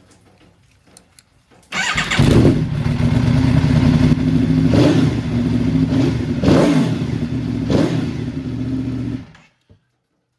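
2014 Aprilia Tuono V4 1000's V4 engine, breathing through a Graves carbon-fibre exhaust with a tuner, starts about two seconds in. It runs loudly with four quick throttle blips, then cuts off suddenly near the end.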